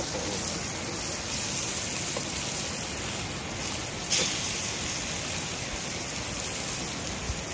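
Trout fillets sizzling in hot oil in a skillet over a campfire: a steady frying hiss.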